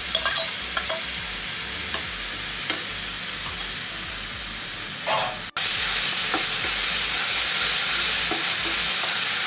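Mashed banana sizzling in hot ghee in a non-stick pan, with light scrapes of a wooden spatula stirring it. About five and a half seconds in, the sizzle jumps abruptly to a louder, even hiss.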